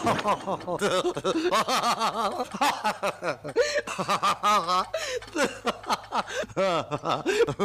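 A man laughing heartily and without a break, a long string of quick pitched "ha-ha" bursts: a cartoon character's exaggerated laugh.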